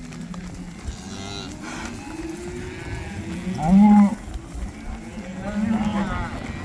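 Cattle mooing, several calls, the loudest about four seconds in and another near the end.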